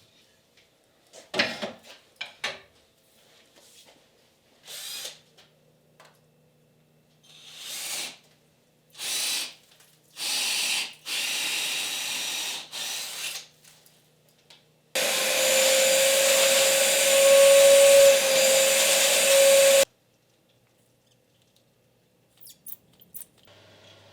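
Workshop handling sounds: a few knocks and clicks, then a power tool run in several short bursts. Then it runs steadily and loudly for about five seconds and cuts off suddenly.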